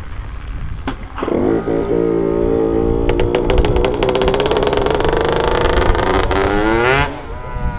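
Two-stroke engine of a 20-year-old Kawasaki 60 cc kids' motocross bike catching about a second in on a push start, then running loud and rough with rapid popping through an exhaust that has nothing in it. It revs higher, then cuts out suddenly near the end, dying for lack of proper fuel, as the riders see it.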